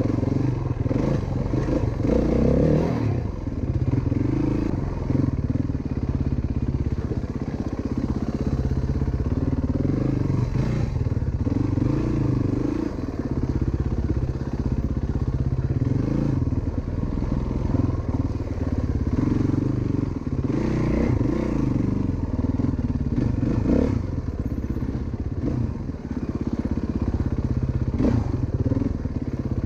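Single-cylinder four-stroke dirt bike engine running while riding, its pitch rising and falling as the throttle opens and closes.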